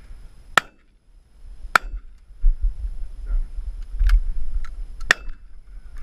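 Shotgun fired twice, about a second apart, each shot a sharp crack, followed by several lighter clicks and cracks a few seconds later. Wind rumbles on the microphone.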